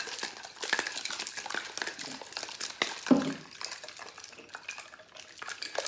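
A glass-and-tin cocktail shaker being shaken hard, the liquid sloshing and rattling inside. About three seconds in, one knock as the shaker is broken apart and set down, then a few light clinks of handling.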